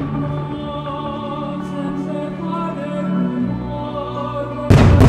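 Music with singing plays over the show's sound system for a fireworks display. Near the end, a sudden loud boom comes as the aerial shells burst.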